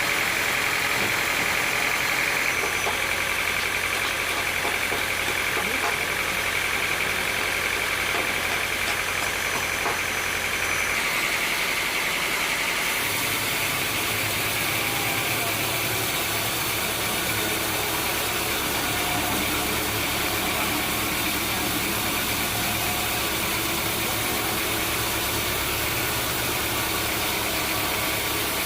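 Sawmill machinery running steadily, a continuous motor hum with a high whine that drops away and a lower tone that changes about eleven to thirteen seconds in.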